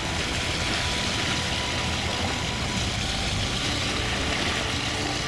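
Sailboat's inboard engine running steadily under way, mixed with a steady rush of wind and water past the hull.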